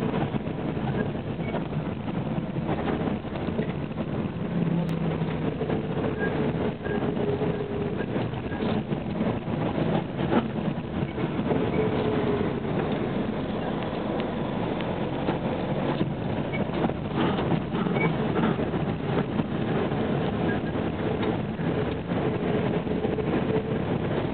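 A small tourist road train running steadily, heard from on board: engine and rolling noise with a few short knocks and rattles.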